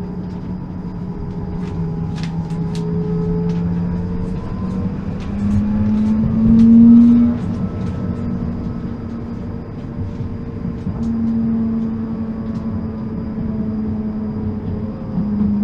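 Tram in motion: the electric drive's whine shifts and rises in pitch as it picks up speed, over a steady wheel-on-rail rumble. A run of clicks and clatter comes as the wheels cross rail joints and points, loudest about seven seconds in.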